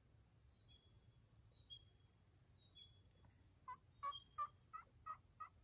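A run of about eight turkey yelps, evenly spaced about three a second, starting a little past the middle. Earlier come a few thin, high, short chirps about a second apart.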